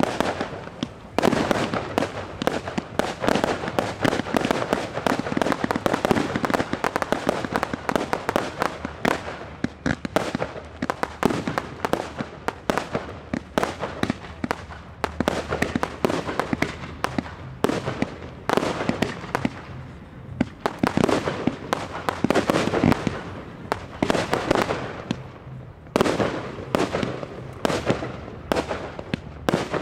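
Professional fireworks display: a dense, rapid barrage of aerial bursts, several bangs a second with crackle between them, easing briefly twice in the second half.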